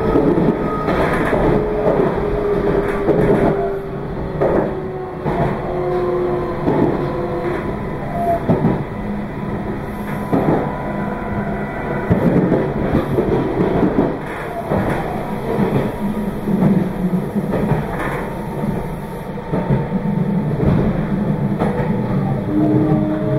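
Meitetsu 2200 series electric train running along the track, heard from on board: a steady rumble with irregular knocks from the wheels and short whining tones that slide slightly in pitch.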